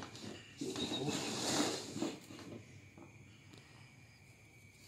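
Rustling and hissing from a bellows air pump and its plastic hose being handled and worked, strongest in the first couple of seconds, then fading to faint handling noise.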